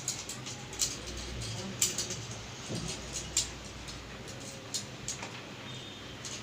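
Scattered light clicks and taps, irregularly spaced, from small mixer grinder motor parts being handled and fitted by hand during reassembly.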